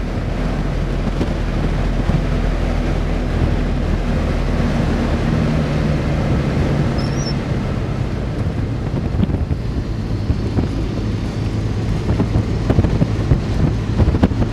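Car engine and road noise heard from inside the cabin while driving, a steady low drone whose engine note shifts about five seconds in. Near the end, wind buffets the microphone.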